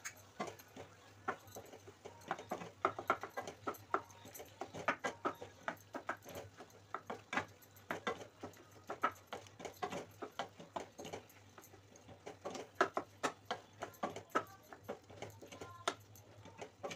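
Wooden spatula knocking and scraping against a steel kadai while chopped tomatoes are stirred, in quick irregular clusters of clicks and taps.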